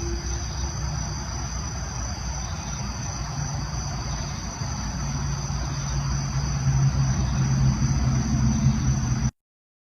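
Loud, echoing low drone of unexplained origin, the kind reported as a strange sound from the sky, unlike brakes or construction work. It swells and gains a higher tone over the last few seconds, then cuts off suddenly.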